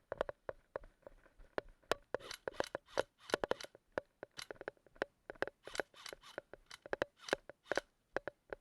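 Irregular sharp clicks, several a second, mixed with short rustling bursts.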